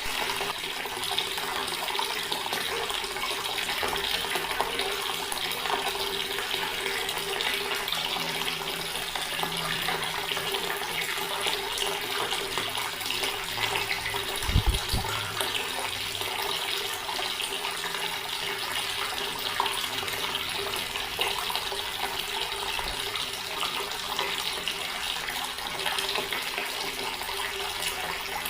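Water running steadily from a tap into a stone basin, a constant splashing flow. One brief low thump about halfway through.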